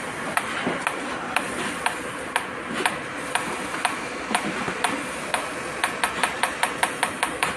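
Paddle applicators of an electromagnetic muscle-stimulation (EMS body-sculpting) machine clicking sharply with each magnetic pulse against the belly: about two clicks a second, quickening to about four a second a little past halfway.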